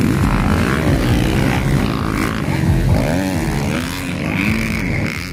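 Several motocross dirt bikes' engines revving up and dropping off, their pitches overlapping and gliding up and down as the bikes race over the jumps.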